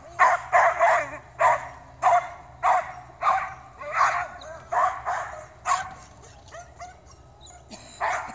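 Dog barking repeatedly while running, about two barks a second, going mostly quiet for nearly two seconds near the end before barking again.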